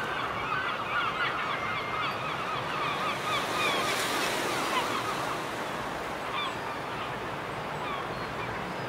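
A flock of birds calling: many short, overlapping calls, thickest in the first few seconds and thinning out after about six seconds, over a steady rushing background of surf.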